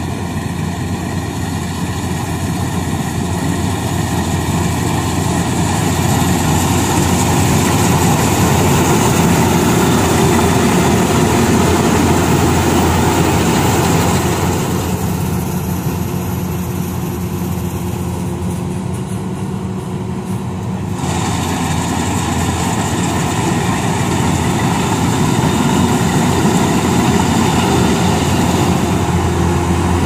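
Rice combine harvester's engine and machinery running steadily. For a stretch in the middle the sound turns duller and slightly quieter, then comes back.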